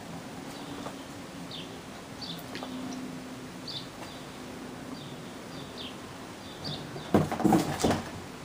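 Short high bird chirps repeating every half second or so in the background. About seven seconds in, a loud burst of scuffling and thumps lasting about a second as the kittens dash across the carpet by a cardboard box.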